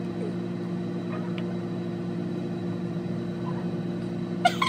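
A steady, even hum of several fixed low tones, like a running motor or appliance.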